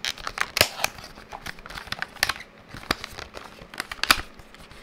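Clear plastic film being peeled and crinkled off a small cardboard SSD retail box, with irregular sharp crackles and taps as the box is handled.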